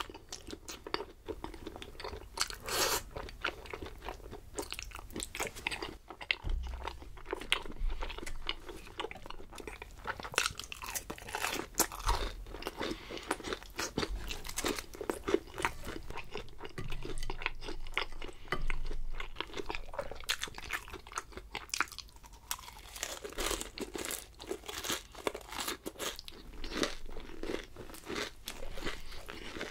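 A person chewing food close to the microphone, with many short, crisp crunches throughout.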